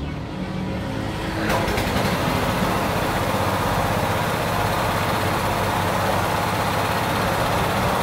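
Small petrol engine of a car-wash pressure-washer pump running. About a second and a half in, the sound jumps to a loud, steady hissing rush that carries on.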